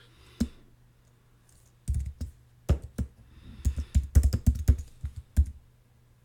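Typing on a computer keyboard: a single keystroke, a pause of about a second and a half, then a quick run of keystrokes in short clusters.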